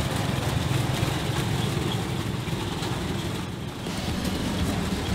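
Homemade tank's engine running steadily with a low rumble as the tank creeps forward on its tracks.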